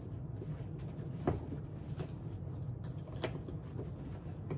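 Purses and bags being handled while packing a suitcase: a few light knocks and rustles, the sharpest about a second in, over a steady low hum.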